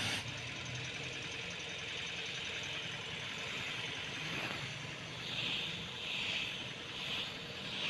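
S990 HVLP spray gun hissing as it sprays paint onto a motorcycle fuel tank, in short bursts about once a second from about five seconds in, over a faint steady low hum.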